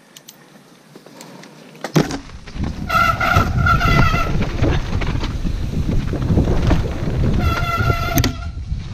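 Mountain bike rolling down a rough dirt singletrack: about two seconds in a knock, then a steady rumble and rattle of tyres and bike over the trail. Twice, a held high-pitched brake squeal as the rider brakes.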